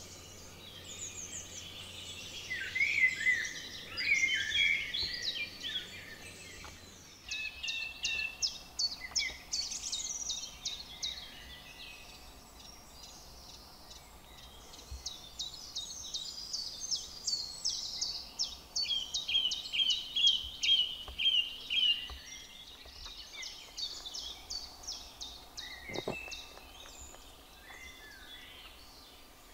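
Several songbirds singing at once, their phrases overlapping, with long runs of quick, repeated short notes.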